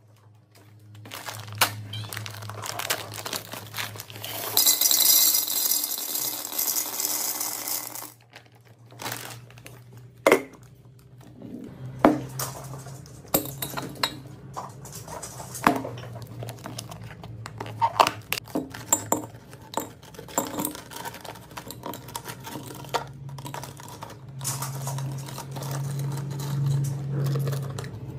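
Candy restocking sounds: plastic candy packaging crinkling and candies clattering into glass jars. There is a burst of crinkling about five seconds in, then a run of sharp clicks and clinks of candy, glass and a clip-top jar's lid.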